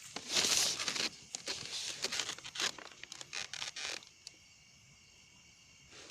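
Irregular rustling and crackling, loudest about half a second in, then in scattered bursts that die away about four seconds in.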